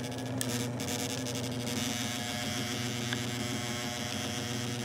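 Electric sheet sander's motor running steadily, a constant buzzing hum.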